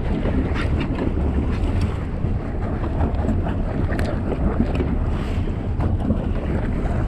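Wind buffeting the microphone in a steady low rumble over choppy water around a boat, with scattered small splashes and knocks.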